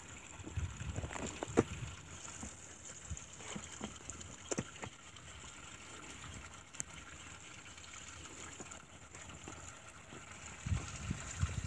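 Wind buffeting the microphone in short gusts, about a second in and again near the end, over a faint steady hiss, with a few scattered light clicks.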